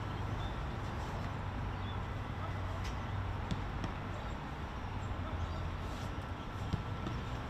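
Steady low hum and open-air background, with a few faint sharp knocks of footballs being struck and caught during goalkeeper training.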